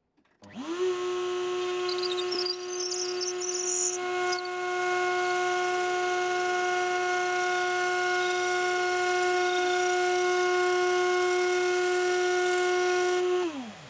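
Table-mounted wood router spinning up with a steady high whine, running at speed while a wooden rod is fed through a dowel-making jig and cut round by the bit, then winding down with a falling pitch near the end.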